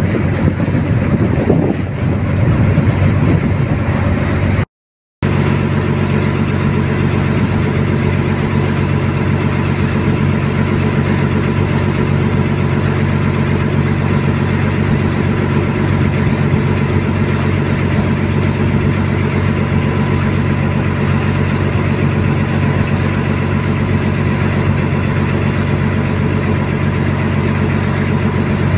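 A boat's engine running steadily at an even pitch, heard from on board. Wind buffets the microphone in the first couple of seconds, and the sound drops out briefly about five seconds in.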